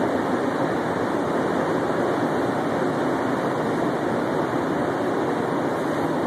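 Steady rolling noise of a Bombardier MR-73 rubber-tyred metro car, heard from inside the car as it runs along the station platform.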